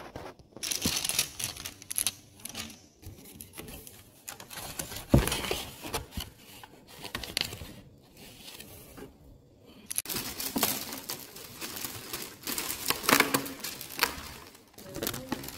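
Thin plastic carrier bag and a foil insulated bag being handled and opened, rustling and crinkling irregularly, with one loud thump about five seconds in.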